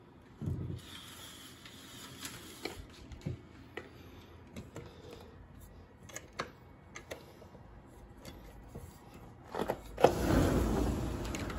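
Vertical blind slats clicking and knocking as they are pushed aside, then a loud clack about ten seconds in and a steady rush of sound as the sliding glass balcony door is opened.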